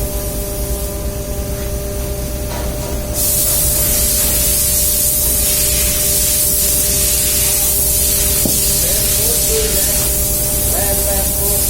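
Steady machinery hum with a few steady tones, joined suddenly about three seconds in by a loud, even hiss that keeps on.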